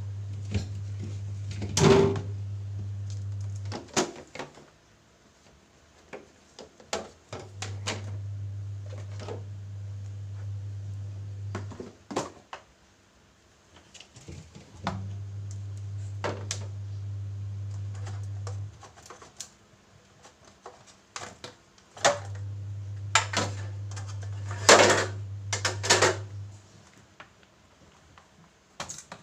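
Plastic refrigerator drawers and shelves knocking, clicking and sliding as the small fridge is handled and cleaned, in a run of irregular knocks with louder clatter about two seconds in and near the end. Under it, a low hum comes on for about four seconds and stops for about three, again and again.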